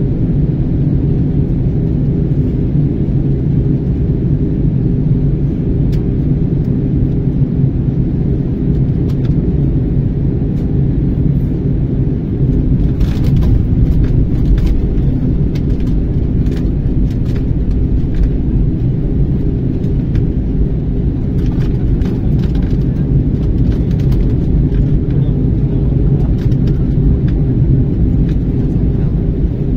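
Steady cabin roar and hum inside an Airbus A321 airliner in flight, from its jet engines and the airflow over the fuselage. From about twelve seconds in, scattered light ticks and knocks come through over the roar.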